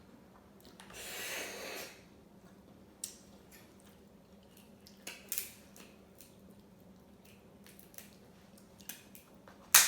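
Crab claw shell being worked open by hand: scattered small clicks and snaps, a rushing, squishing noise lasting about a second near the start, and one sharp, loud crack of the shell near the end.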